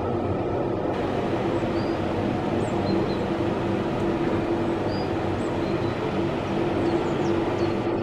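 Electric mountain railway train running past at a distance: a steady rumble with a held low hum that grows stronger partway through. A few faint high chirps sound over it.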